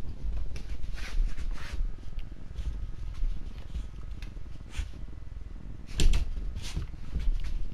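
Shiba Inu sniffing in short, irregular breathy puffs close to a head-mounted camera, over the low rubbing and bumping of the camera as its wearer moves, with a louder bump about six seconds in.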